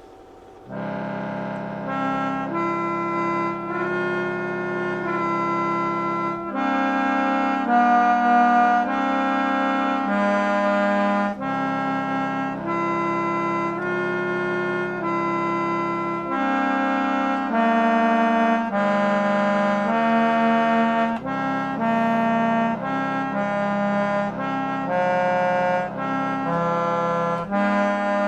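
Bontempi electric chord organ, its fan-blown reeds playing a melody over sustained chords and held bass notes in a reedy, accordion-like tone. The playing starts about a second in after a short pause.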